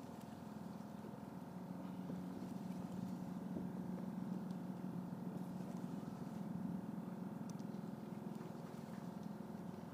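A boat's motor running steadily with a low hum, growing louder in the middle and easing off near the end.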